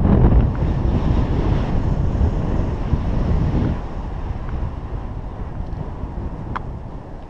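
Wind buffeting the microphone of a camera worn by a paraglider pilot in flight: a steady, low rumbling rush of airflow. It is louder for the first few seconds and eases off after about four seconds.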